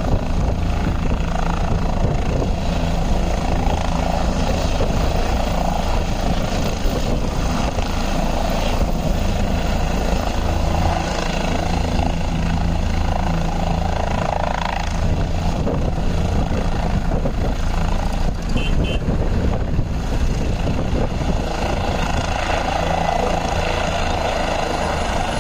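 Helicopter running, a loud steady engine and rotor drone with no let-up.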